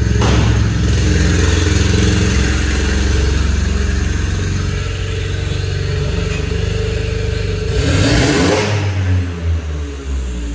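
VW Polo's 1.0 TSI turbocharged three-cylinder engine, running with a downpipe in place of the catalytic converter and an aftermarket intake, revving hard under full throttle. About eight seconds in there is a loud rushing burst, and then the engine note drops away.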